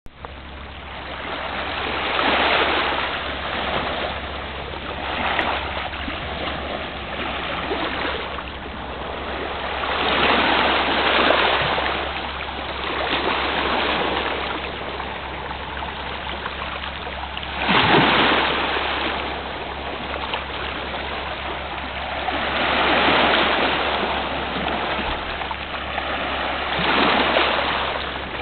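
Small sea waves washing onto a pebble shore, a hiss that swells and fades every few seconds, with one sharper wash about eighteen seconds in. A steady low hum runs underneath.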